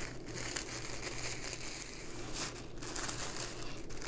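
Tissue paper crinkling as poppy petal layers are scrunched and wrinkled up around a pipe-cleaner stem, with a couple of short pauses.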